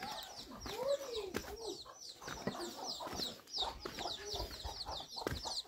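Free-range chickens clucking, with a quick, steady run of high chirps throughout.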